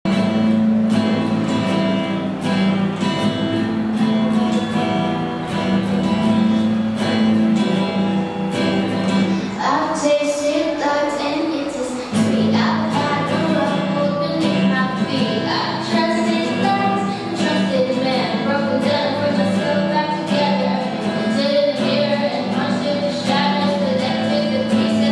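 Steel-string acoustic guitar strummed in steady chords, with a girl's singing voice coming in about ten seconds in.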